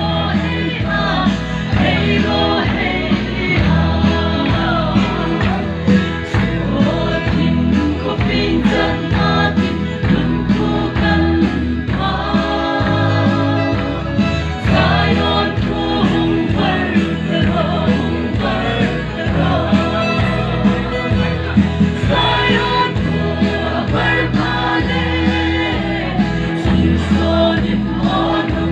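A group of people singing a gospel song together over music with a steady beat.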